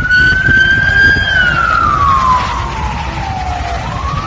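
Ambulance siren in a slow wail: the pitch climbs gently, slides down over about two and a half seconds, and starts rising again near the end, over a low rumble.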